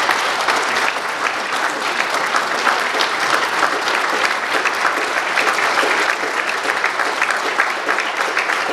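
An audience of a few hundred clapping and cheering in a large hall, a standing ovation that keeps a steady level throughout.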